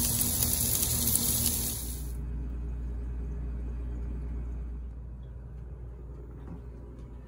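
Chicken quarters and burger patties sizzling on a Weber grill, a steady loud hiss. It cuts off about two seconds in, leaving a low, quiet hum.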